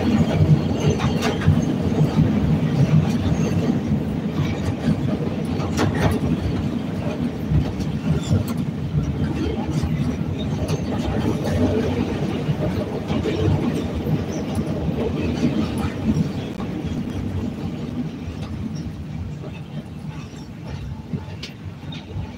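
CTA Red Line 'L' train running on elevated track, heard from inside the car: a steady rumble of wheels on rail with scattered sharp clicks, easing somewhat toward the end.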